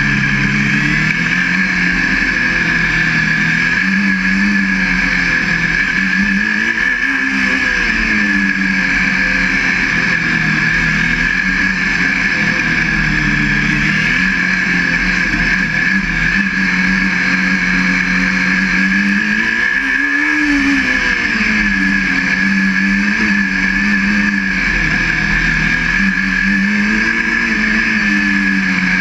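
Formula SAE race car's engine heard from on board, its pitch rising and falling again and again as the car accelerates and slows between cones. A steady high whine runs under it throughout.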